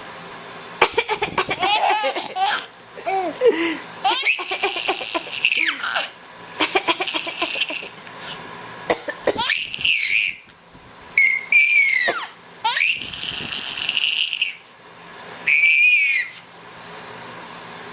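Baby boy letting out repeated very high-pitched squealing shrieks mixed with laughter, set off by the sound of someone coughing; short coughs come in the first few seconds.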